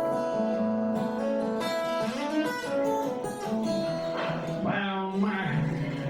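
Acoustic guitar playing a song's instrumental introduction: strummed chords with notes left ringing, before the singing begins.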